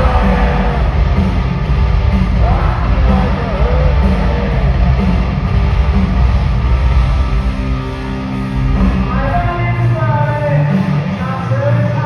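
Hard rock band playing live at full volume: distorted electric guitars, bass and drums, with singing whose pitch slides up and down over the band.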